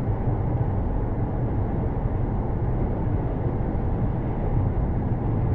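Steady low rumble of a moving vehicle, road and engine noise with no impacts or sudden events.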